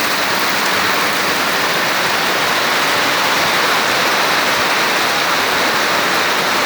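Heavy, steady downpour of rain, an even loud hiss.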